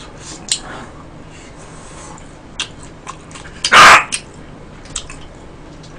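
A pet dog barks once, short and sharp, a little past the middle, fussing while its owner eats. A few faint clicks sound around it.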